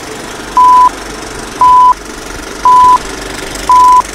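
Film-leader countdown sound effect: four short, high beeps at one steady pitch, about one a second, over a steady background hum.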